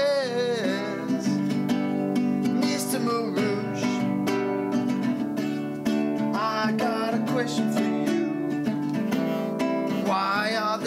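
A song with strummed acoustic guitar and a voice singing in phrases over it, the guitar chords running steadily beneath.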